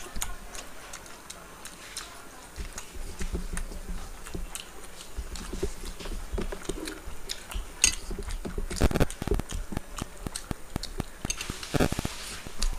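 Two people eating rice and chicken by hand from steel plates: chewing and mouth sounds, with fingers mixing and scraping food against the plates in many small clicks. A couple of louder knocks come about nine seconds in and again near the end.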